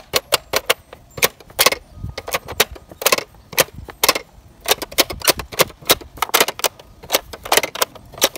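Playskool pop-up animal toy clicking and snapping as its plastic buttons, switches and spring-loaded pop-up doors are worked by hand: a rapid, irregular run of sharp clicks, about two or three a second.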